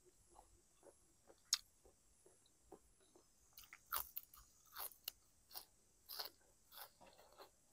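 Close-up mouth sounds of a person biting and chewing a crisp raw green vegetable: a few faint clicks and one sharp snap in the first half, then a steady run of crunchy chews about every two-thirds of a second from a little past halfway.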